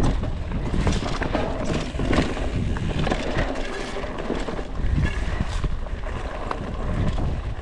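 Mountain bike riding over leaf-covered, rocky dirt singletrack: tyres crunching through dry leaves and the bike knocking and rattling over stones and roots in irregular clicks, with a steady rumble of wind on the microphone.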